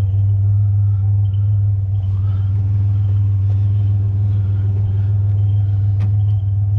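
Vehicle engine idling with a steady low drone, and a light knock near the end.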